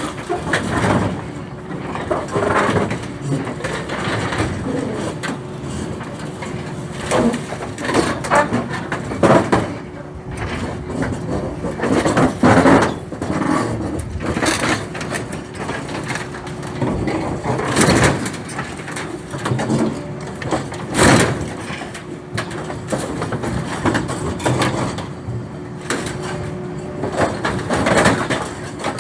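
Excavator running under load while it crushes and tears apart an old steel farm trailer: a steady engine hum with a held whine, over irregular metal crunching, scraping and banging, with the loudest crashes a little under halfway and again past halfway.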